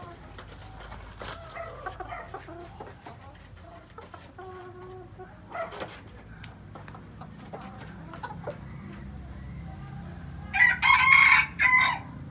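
Young Tân Châu rooster giving one loud crow, about a second and a half long, near the end, after scattered soft clucking calls.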